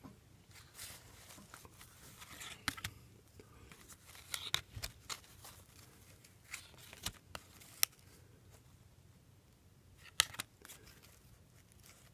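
Paper sleeves and cardboard View-Master reels being handled: scattered light clicks, taps and short rustles, with a sharper click near the end.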